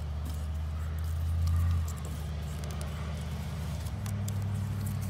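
An engine running steadily at idle, a low, even hum that swells slightly about a second and a half in.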